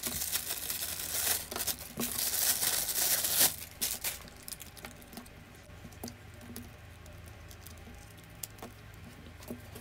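Packaging being unwrapped by hand: crinkling and tearing of wrapping for about the first four seconds, then quieter scattered handling clicks and taps.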